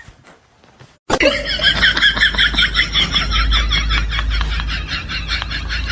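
Rapid, high-pitched laughter starting suddenly about a second in and running on in quick repeated pulses.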